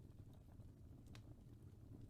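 Faint fireplace crackling: scattered small pops and clicks, one sharper pop a little past halfway, over a low steady rumble.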